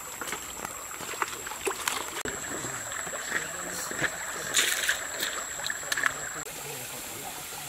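Water running over rocks in a stream, with scattered clinks and taps of metal pans and a ladle being handled.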